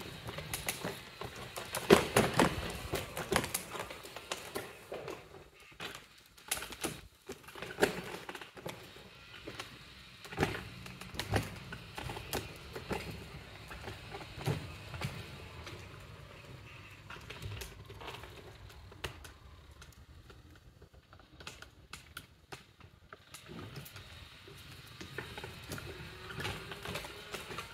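Irregular footsteps and small knocks on stone flagstones, fairly quiet, with a louder cluster of taps about two seconds in.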